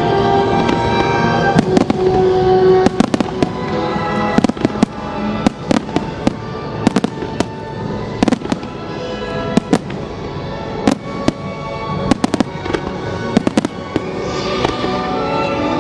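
Fireworks show: many shells bursting with sharp bangs in quick, irregular succession, over music played for the display.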